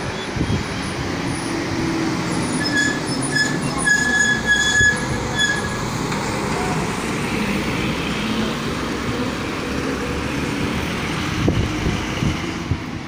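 A government bus's diesel engine running as the bus passes close, with its brakes squealing on and off in a high pitch for a few seconds around the middle of its pass. A pickup truck's engine follows.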